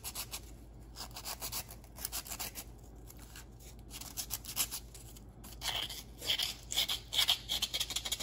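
150-grit emery cloth rubbed by hand back and forth over a small turned metal part in quick, scratchy strokes, which grow louder in the second half. The surface is being scuffed so that epoxy will adhere.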